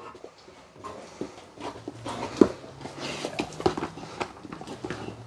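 Scattered light taps and knocks, the loudest about two and a half seconds in, from a dog moving about on carpet, picking up a toy and bringing it to a plastic tub.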